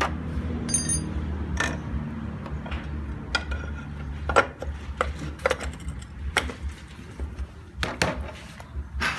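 Metal clicks, clinks and knocks as a Honda motorcycle's left engine cover is handled and fitted over the flywheel and its bolts are started by hand, over a steady low hum.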